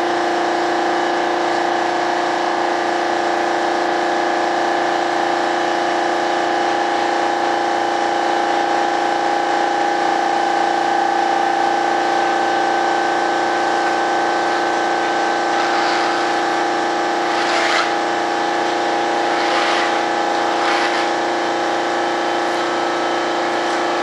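A steady machine drone at a constant pitch, with a few brief scraping or rustling sounds in the second half.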